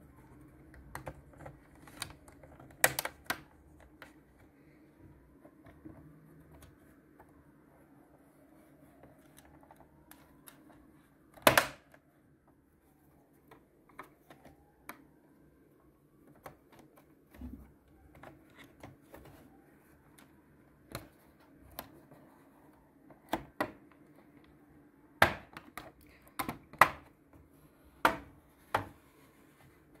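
Plastic snap-in clips of a Lenovo Z51 laptop's bottom cover clicking and popping loose as the cover is pried off by hand. The clicks are scattered and irregular. The loudest is a sharp snap about a third of the way in, and a quick run of snaps comes near the end.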